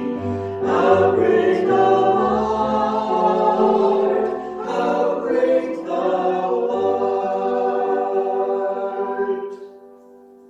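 Choir singing in sustained chords, closing on a long held chord that breaks off and fades about nine and a half seconds in.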